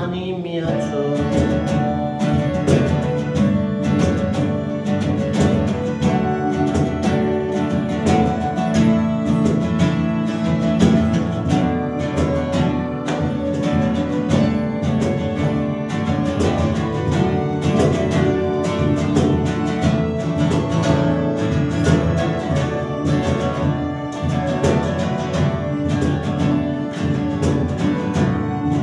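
Acoustic folk band music with no vocals: strummed acoustic guitar over sustained accordion chords, with a steady beat.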